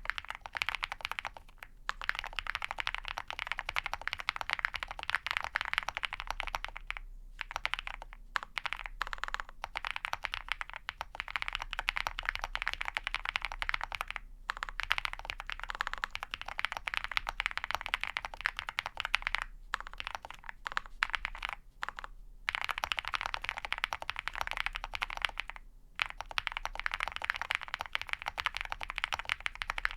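Fast continuous typing on a custom mechanical keyboard with lubed and filmed Ca Phe Sua Da linear switches in a POM plate and PBT keycaps, with brief pauses several times.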